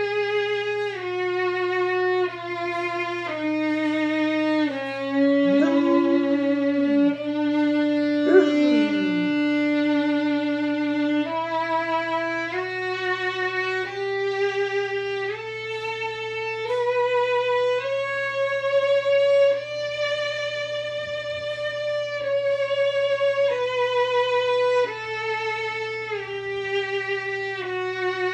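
Violin playing a slow melody of long, stepping notes with vibrato. An Alaskan malamute howls along twice, around five and eight seconds in, its voice sliding up and down in pitch.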